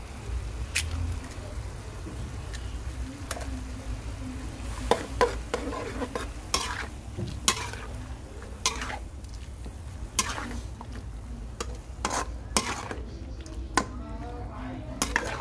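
A spatula scraping and knocking against a wok as beef and vegetables are stir-fried, over a light sizzle. The strokes come irregularly and grow more frequent from about five seconds in.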